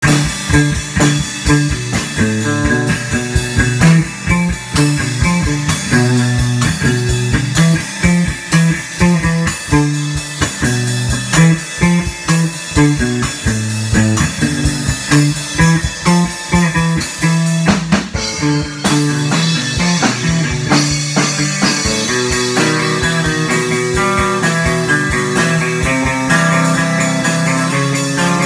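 Guitar and drum kit played live together: a repeating low guitar riff over a steady rock beat. A little past the middle the drums break off for a moment, then the guitar carries on with longer held notes over a lighter beat.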